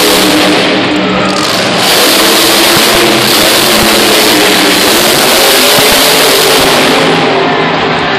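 Grave Digger monster truck's supercharged V8 engine revving hard, a loud dense rush of engine and exhaust noise. The highest hiss drops away near the end as the throttle eases.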